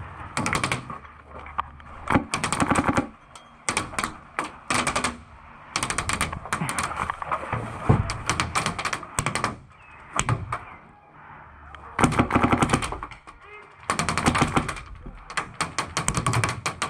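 Airsoft guns firing on full auto: repeated bursts of rapid sharp cracks with short gaps between them, the longest and loudest bursts about twelve seconds in and again near the end.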